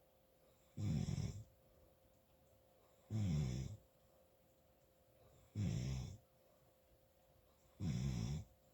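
Really loud snoring: four snores, about one every two and a half seconds, each lasting about half a second, with quiet breathing gaps between.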